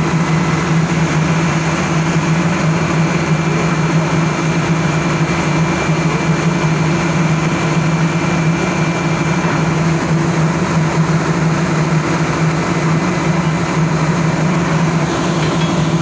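Engine-room machinery of a ship running with a loud, steady drone.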